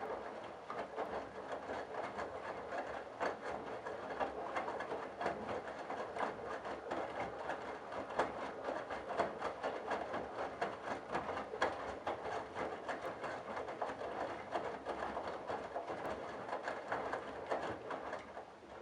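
Candy Bianca front-loading washing machine's drum turning on a tumble stroke, wet towels and water splashing and flopping inside with a steady patter of small knocks. It starts suddenly and stops just before the end as the drum pauses between rotations.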